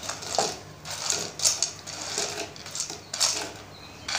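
Steel spoon scraping and clinking against a ceramic plate as fried gram-flour dahi bara pieces are pushed off it into a bowl of yogurt. The strokes are short and irregular, coming about once or twice a second.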